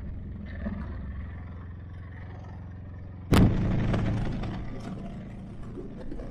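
Motorcycle engine running steadily at a road cruise, heard as a low hum under the wind. About three seconds in a sudden loud rush of noise breaks in and fades away over a second or so.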